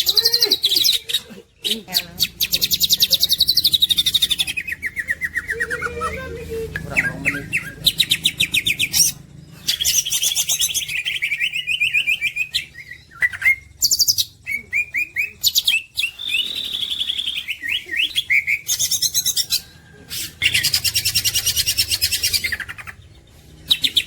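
Cucak hijau (green leafbird) singing in loud bursts of very rapid, high chirping trills mixed with quick gliding whistled notes, each burst lasting a second or a few seconds, with brief pauses between them.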